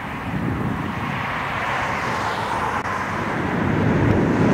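Boeing 777 twin jet engines running on the runway, a steady rumbling roar that grows louder about three and a half seconds in.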